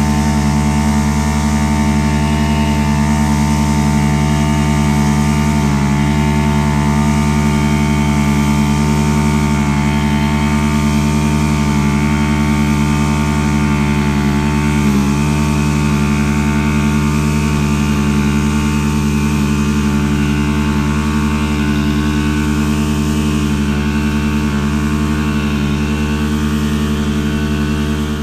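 A small petrol lawn-equipment engine running steadily at one constant speed, its pitch unchanging throughout.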